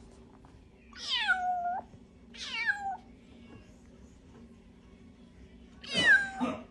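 Bengal kitten meowing three times: two calls close together, each starting high and dropping in pitch, then a third, shorter one near the end.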